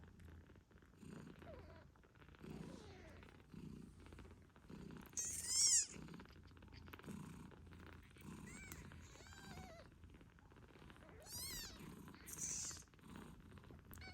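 A mother British shorthair cat purring steadily, rising and falling about once a second with her breathing, while she nurses. Her eight-day-old kittens give a few high-pitched squeaking mews over it; the loudest comes about five seconds in.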